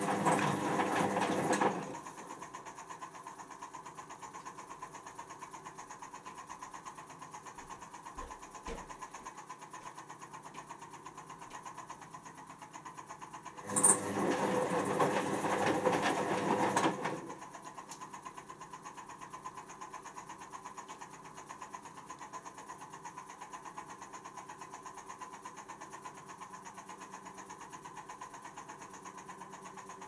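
Candy C1040 washing machine in the fill stage of its cotton pre-wash, the drum motor turning the load steadily. The water inlet valve is open at the start, with water rushing in until about two seconds in, and it clicks open again about 14 seconds in for three more seconds of inflow, topping up as the load soaks up water.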